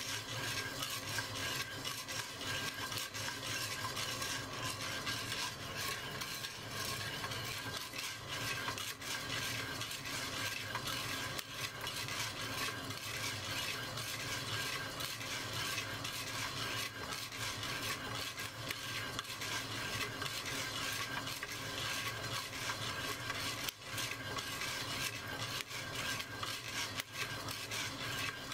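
Coffee beans being stirred in a clay roasting pot: a steady scraping and rustling made of many small ticks.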